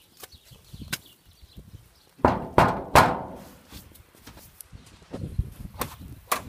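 Three loud thuds in quick succession a little over two seconds in, each dying away, with scattered light ticks and taps before and after.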